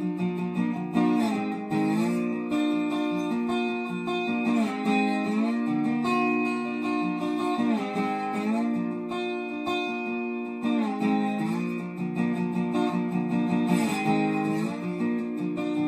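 Lap-style resonator guitar played with a slide bar: picked chords and notes that slide up and down into each other, an instrumental passage with no singing.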